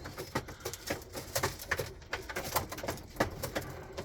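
Young pigeons pecking grain off a plastic feed tray: a rapid, irregular tapping, with pigeons cooing softly in the loft.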